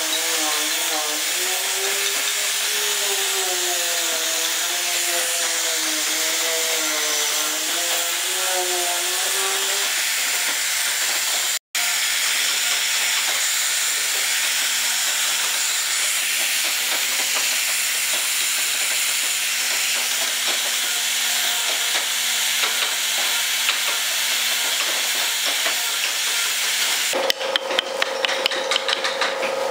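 Angle grinder with a sanding disc running and sanding carved wood, a steady hiss with the motor's whine wavering up and down in pitch for the first ten seconds or so. Near the end it gives way to a mallet tapping a small carving chisel in quick, repeated strokes.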